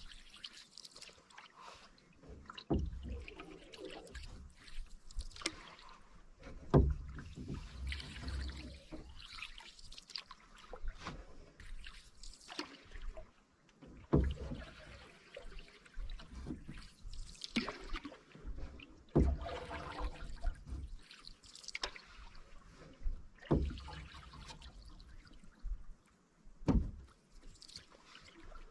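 Canoe paddle strokes: water swishing and dripping off the blade, with a sharp low thump every few seconds.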